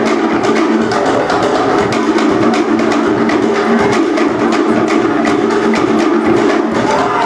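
Cook Islands drum ensemble playing a rapid, driving rhythm on wooden slit log drums for the dance, with a steady low tone underneath.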